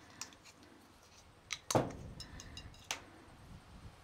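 Handling noise from plastic pipe fittings and a roll of thread tape on a stainless steel bench: scattered small clicks and ticks, with a louder knock a little under two seconds in and a sharp click near three seconds.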